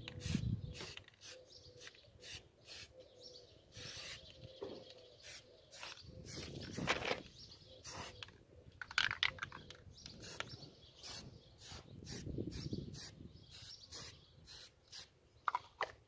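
Aerosol primer can in use: a run of short, sharp clicks and hisses, about two or three a second, with a few longer spray hisses among them.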